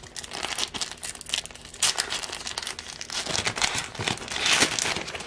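Wrapper of a Topps baseball card pack being torn open and crinkled by hand: irregular crackling, louder about two seconds in and again around four and a half seconds.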